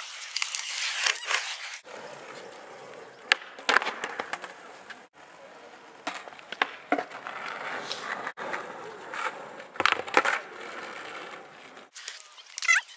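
Skateboard wheels rolling over the park's paved surface, with the board's sharp clacks from trick pops and landings several times.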